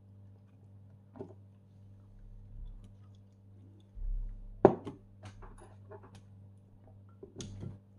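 Beer being drunk from a can: a thump as the can is lifted, then a run of sharp swallowing and gulping clicks for about a second and a half, and the can set back on the table, over a steady low hum.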